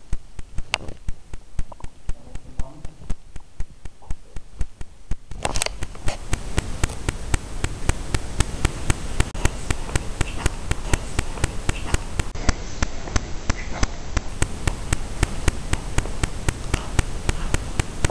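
Hiss from a boosted recording, jumping sharply louder about five seconds in, with a fast, even run of ticks several times a second throughout. A faint fragment in it is captioned as a spirit voice saying "get up".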